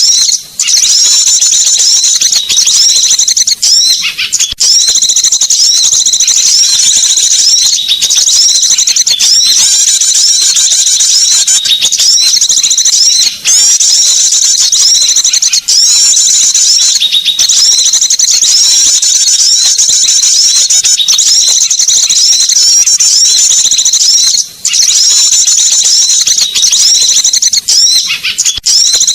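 Small birds calling in a loud, dense, almost unbroken chatter of rapid, high-pitched repeated notes, as played on a bird-lure recording. There are only a couple of brief breaks.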